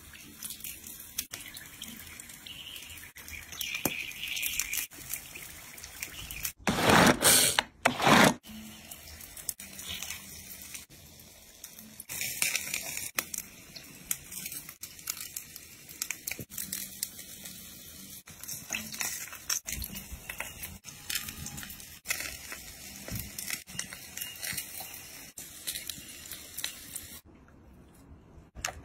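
Seafood and meat sizzling and crackling on a hot grill, with many small clicks. Two loud hissing bursts come about seven and eight seconds in.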